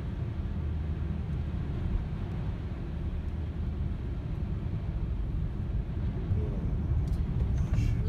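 Steady low rumble of a car's engine and tyres heard from inside the moving car, driving on a slushy highway.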